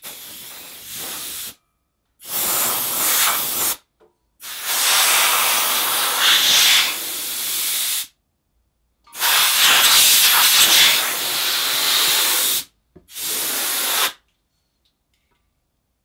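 Compressed-air blow gun fired in five blasts of loud hiss, each cut off sharply, the longest about four seconds, blowing dust off a CNC router.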